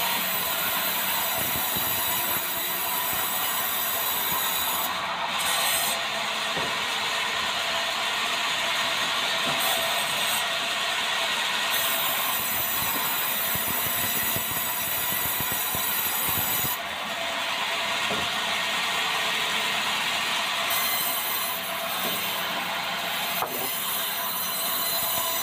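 Large sawmill band saw headrig running and cutting through a debarked meranti log, a steady, continuous sawing noise of the blade in the wood.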